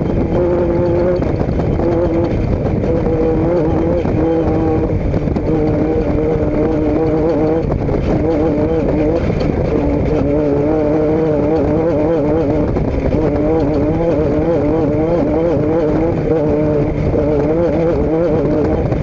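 A motor vehicle engine running steadily, its hum wavering slightly in pitch over a loud rushing noise.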